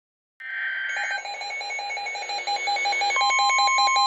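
Midland WR-120 weather radio going off for a severe thunderstorm warning: its alert alarm beeps rapidly, about six pulses a second, over radio hiss. About three seconds in, the steady 1050 Hz NOAA Weather Radio warning tone from the broadcast joins it.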